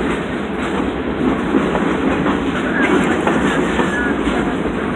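Freight train of boxcars rolling past: steady noise of steel wheels on the rails.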